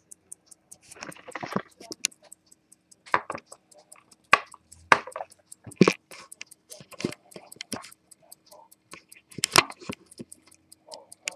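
Longines pocket watch movement ticking steadily, about five ticks a second, with louder irregular knocks and clicks of the metal case being handled and set down on the bench.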